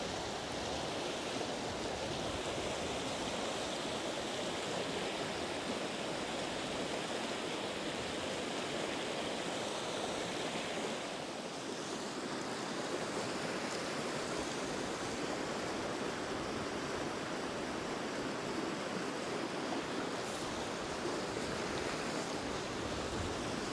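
A shallow river rushing steadily over a small rocky rapid, white water splashing between boulders.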